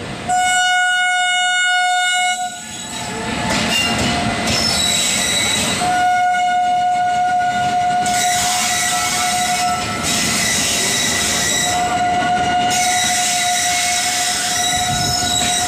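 Horn of an Indian Railways electric locomotive sounding three long blasts as the express passes slowly: the loudest, about two seconds long, right at the start, then a longer one from about six seconds in and another in the last few seconds. Between and under the blasts runs the steady rolling noise of the train's wheels on the rails.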